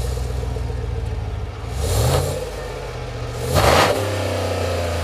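Exhaust of a Chevrolet 5.3-litre V8 idling, revved briefly twice, about two seconds in and again near four seconds, each time rising and dropping back to a steady idle.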